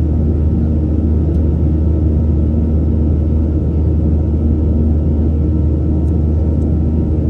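Boeing 737-800's CFM56-7B turbofan engines heard inside the cabin from a window seat over the wing during the climb: a steady low rumble with faint steady tones above it.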